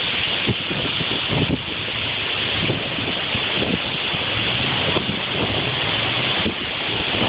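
Steady rushing roar of tornado-storm wind and rain, with gusts thumping on the microphone.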